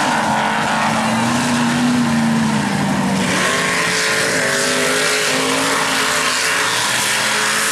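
Mud-racing truck and buggy engines running hard under load, a loud steady drone whose pitch rises, drops sharply about three seconds in, then climbs again.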